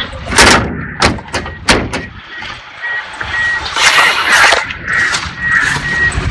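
Wind buffeting and handling noise on a handheld phone microphone, in several sudden rushes. From about halfway through, a short high beep repeats about twice a second.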